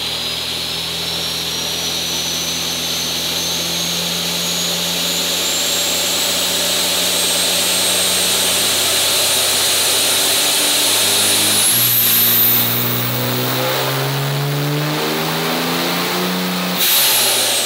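Cummins diesel in a third-generation Dodge Ram making a hard pull on a chassis dyno, breathing through a velocity-stack intake, while its 67 mm Taterbilt turbo whistles and climbs steadily in pitch. About 11 and a half seconds in the engine note drops and then rises again. Near the end the throttle comes off and the turbo whistle falls away.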